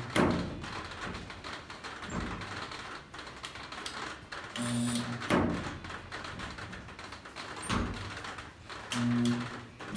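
Unispotter stud welder with a domed shrinking tip giving short humming buzzes of about half a second, twice, each as the trigger is pulled briefly to heat a small spot on the steel panel. This is micro-shrinking of a high spot bulging along a weld. A sharp knock follows each buzz.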